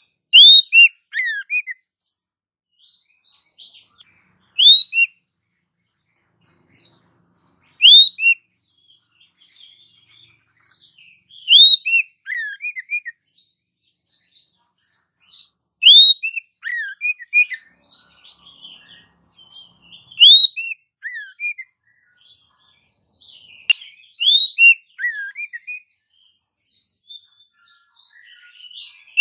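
Bird-lure (pikat) recording of birdsong: a loud phrase of sharp, hooked whistled notes repeats about every four seconds, seven times, over many faint chirps from other birds. It is the call played to attract wild birds in for trapping.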